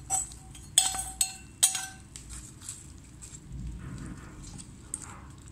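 A metal ladle clinking against a stainless-steel pot while stirring tempering into cooked lentil dal: about four short ringing clinks in the first two seconds, then quieter stirring.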